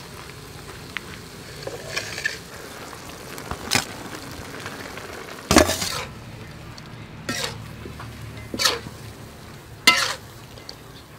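Scallops and vegetables stir-frying in a metal pan: a steady sizzle, with a utensil scraping and knocking against the pan every second or two. The loudest stroke comes about halfway through.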